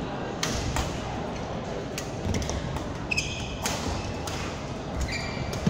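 Badminton rally: sharp racket hits on the shuttlecock at irregular spacing, roughly a second apart, with thudding footfalls and short shoe squeaks on the court mat.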